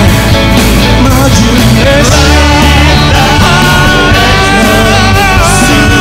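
Live rock band playing, with guitars, bass and drums, taken straight from the mixing desk. A long high note is held from about halfway through.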